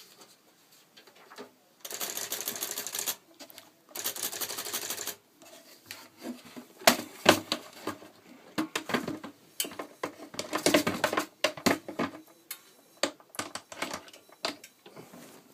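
Olympia typewriter mechanism at work: two short rattling runs of fast ticking about a second long each, then a long irregular series of sharp clacks and clicks.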